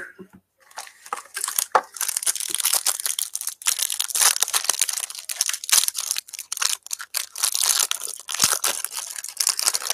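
Foil trading-card pack wrappers being torn open and crumpled: a dense crinkling full of sharp little crackles, starting about a second in.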